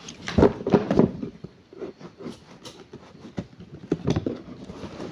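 Irregular rustling, clicking and knocking of packaging being opened and handled, with a few louder knocks in the first second.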